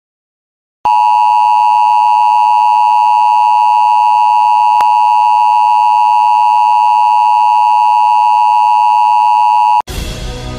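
Loud, steady electronic broadcast test tone, a single unwavering pitch, sounding for about nine seconds as a 'please stand by' signal, then cutting off abruptly. Music starts right after, near the end.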